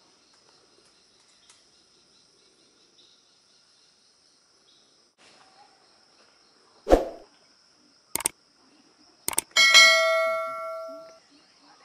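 Steady high insect drone. About seven seconds in comes a sharp thud, then a few mouse clicks and a bell ding that rings out for about a second and a half: the sound effects of a subscribe-button and notification-bell animation.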